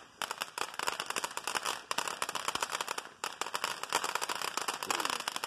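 Ground fountain firework spraying sparks, with a dense, rapid crackling of many small pops.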